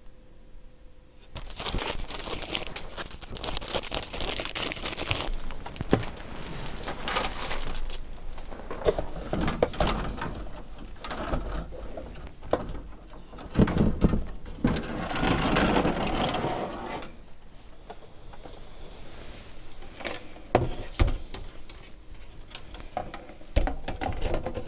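Commodore 64 motherboards scraping and clattering against one another as they are pulled out of a tightly packed cardboard box: a harsh scraping with many sharp clicks. It starts about a second in, dies down after the middle, and a few scattered clicks follow.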